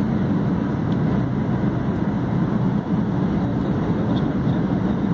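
Steady low rumble of a jet airliner's engines and rushing air, heard inside the passenger cabin during the descent to land.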